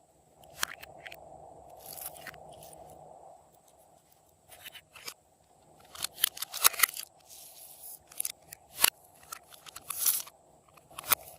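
Slime being kneaded and mixed by hand, giving irregular sticky clicks and crackles in short clusters.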